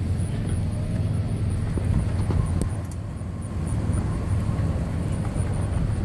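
A vehicle's engine running steadily at low speed, heard from inside the cab through an open window.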